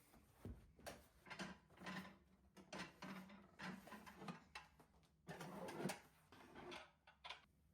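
Quiet household handling sounds in a kitchen: a run of short scrapes, rubs and light knocks as objects are moved and handled, with a longer scrape about five seconds in.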